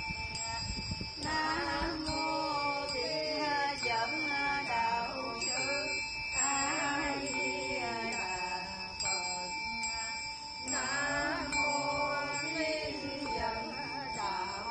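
Voices in a slow, melodic Buddhist chant, sung in phrases of a second or two.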